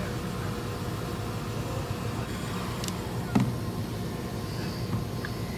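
Electric heat gun's blower running steadily while heating Kydex sheet to soften it for bending, with one sharp knock about three and a half seconds in as the gun is set down on the wooden workbench.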